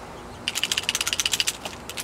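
Rapid, even mechanical clicking like a ratchet, about fifteen clicks a second. It starts about half a second in and breaks off briefly near the end.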